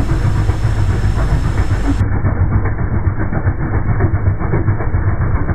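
Car engine running with the rocker cover partly off, its camshaft and rocker arms heard close up as a fast, dense clatter over a steady low hum. About two seconds in the sound abruptly turns duller, losing all its high end.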